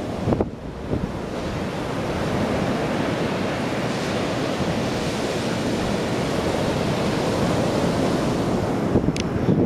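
Surf breaking and washing on a sandy beach, a steady rush mixed with wind on the microphone. The sound builds over the first couple of seconds and then holds steady.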